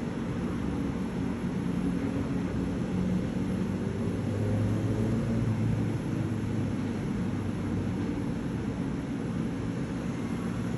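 Steady low rumble with a droning hum that grows a little louder about halfway through.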